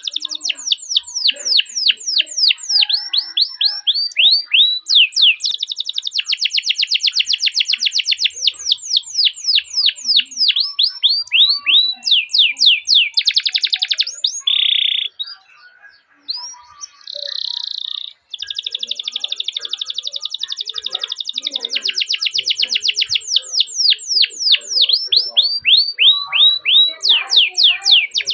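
Domestic canary singing long rolled trills: fast runs of rapidly repeated, high, downward-sweeping chirps. The song breaks briefly about halfway with a short buzzy note, then the rolls resume.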